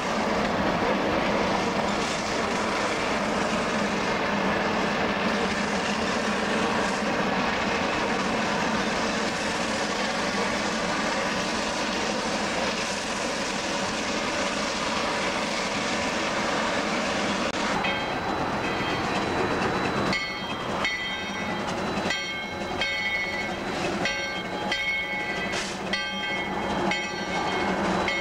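Shay geared steam locomotive No. 14 working along with a train: a steady rush of running noise. About two-thirds of the way in, high-pitched tones sound on top of it, starting and stopping over and over.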